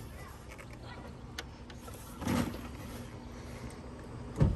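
Hand work in a car's engine bay: a few light clicks, a brief scraping rustle about halfway, and a sharp knock near the end.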